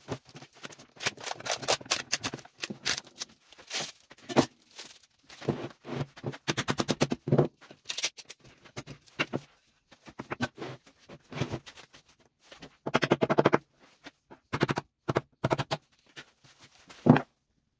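Irregular knocks, taps and clattering as the wooden edge strips and white boards of an epoxy mould are hammered and pried loose from the cured resin slab. There is a quick rattle of strikes partway through and one sharp, loud knock near the end.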